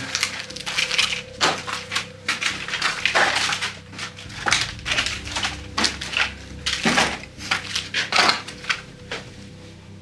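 Irregular crunching and crackling of footsteps over a floor strewn with debris, rubble and plastic.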